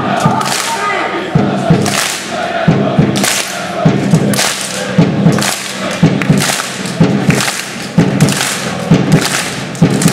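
Football supporters in the stand clapping in unison with their hands above their heads, a rhythmic clap about twice a second, over the crowd's chanting.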